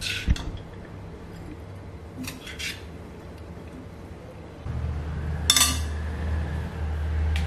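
Steel ladle clinking and scraping against a wok and a bowl as cooked stir fry is scooped out, a few separate clinks with the sharpest about two-thirds of the way through. A low steady hum comes in shortly before that and keeps going.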